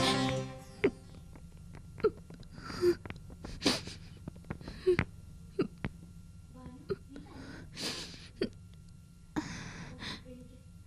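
A person's short, strained breaths or gasps, about six of them, with small sharp clicks in between; a music chord dies away at the start.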